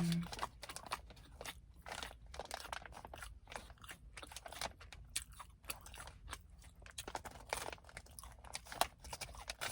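Close-miked chewing of crisp, crunchy food: a string of irregular crunches every fraction of a second.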